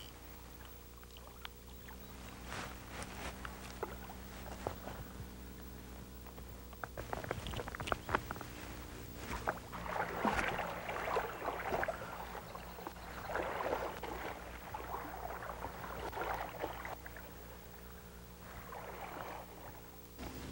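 Shallow river water swishing and splashing around a wading angler, loudest in bursts through the middle of the clip, with scattered small clicks early on. A steady low hum runs underneath.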